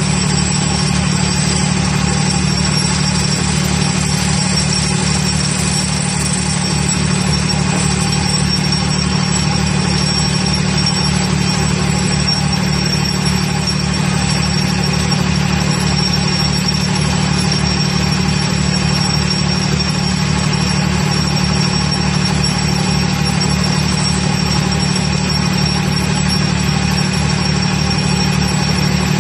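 Vibratory pile-driving hammer running steadily, a loud, even, low buzzing drone with a rapid pulse as it vibrates a pile into the ground.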